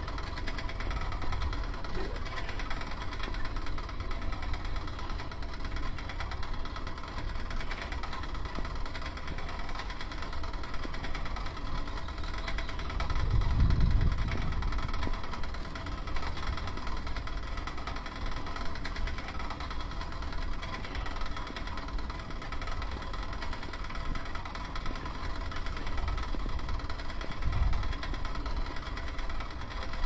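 A vehicle engine running steadily over a low rumble, swelling louder for a moment about halfway through.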